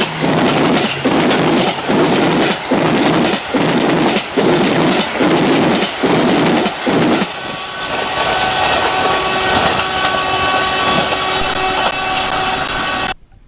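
Bima passenger train rushing past at speed, with a regular dip in the noise about once a second. About seven seconds in the rushing eases and a steady high ringing tone holds over it, until the sound cuts off suddenly near the end.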